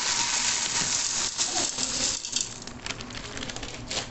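Dried beans pouring from a plastic bag into an empty aluminium pot: a dense rattling patter of beans hitting metal. About two seconds in it thins out into scattered ticks of single beans.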